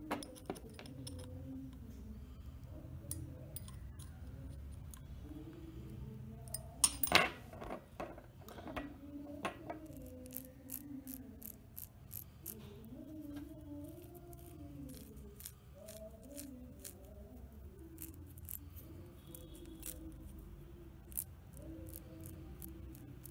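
Small metal parts and tools clicking and clinking while a 1/10-scale RC car is worked on, with a cluster of louder clinks about seven seconds in.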